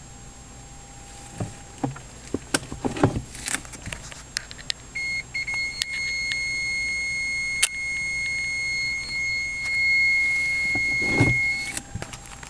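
A few clicks and knocks, then a steady high electronic warning beep from the Mercedes-Benz W204 C-Class with reverse engaged, held for about six seconds before it cuts off suddenly.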